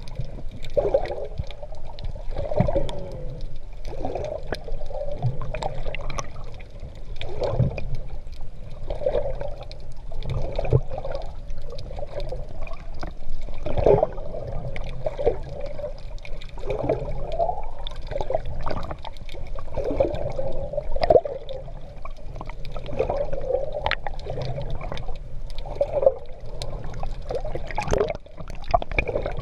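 Sea water gurgling and splashing around a GoPro carried by a swimmer, in surges that come roughly once a second with the strokes.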